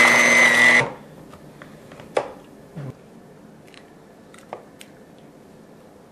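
Electric kitchen mixer beating cookie dough with a steady motor whine, switched off about a second in. A few light knocks and clicks of bowl and utensils follow.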